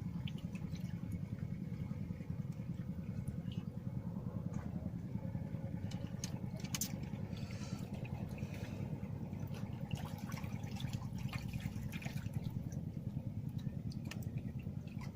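A small engine running steadily, a low droning hum with a fast, even pulse, with scattered faint clicks over it.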